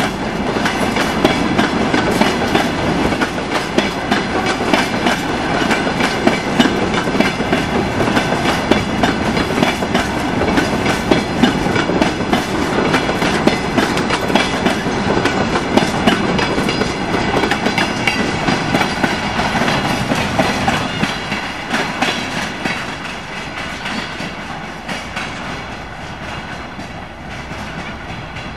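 Log-loaded freight wagons of a departing train rolling past at low speed: a steady clatter of wheels over the rail joints, fading over the last several seconds as the end of the train passes and recedes.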